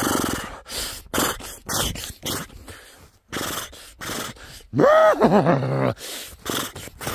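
A man's short, gasping breaths and exhalations, with one drawn-out groan that rises and falls in pitch about five seconds in.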